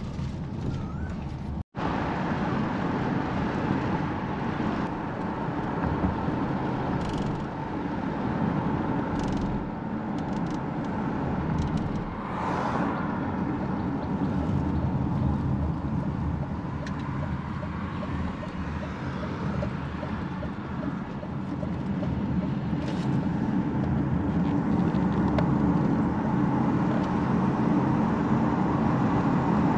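Steady road and engine noise of a moving car, heard from inside the cabin, broken by a brief gap about two seconds in.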